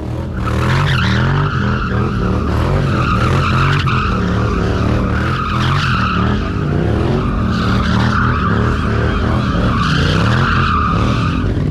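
Motorcycle tyre squealing as the rear wheel spins against the pavement, with the engine revving up and down underneath. The squeal starts about half a second in and cuts off just before the end.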